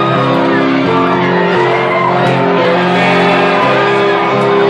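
Loud music over a nightclub sound system, with sustained chords changing about once a second and a crowd shouting and singing along.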